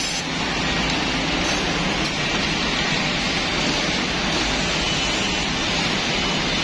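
Steady hiss and hum of woodworking drilling machines running, with no separate strokes or changes.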